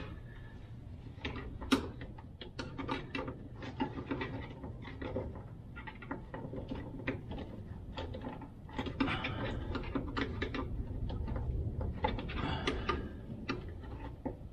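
Irregular small clicks, taps and rattles of plastic and metal fuel line fittings and clips being worked by hand under the van, over a low steady hum.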